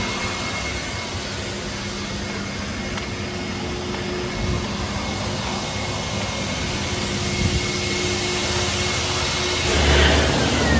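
Car-wash machinery running steadily: a motor hum with a hiss over it. Near the end it grows louder, with a deeper rumble and a falling whine.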